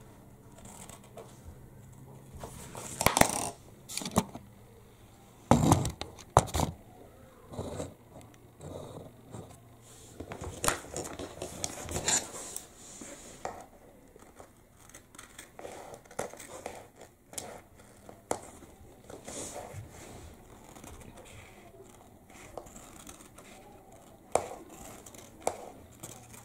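Scissors cutting through stiff roller blind fabric: irregular snips and the scrape of the blades sliding along the sheet, with louder clicks about 3 and 6 seconds in.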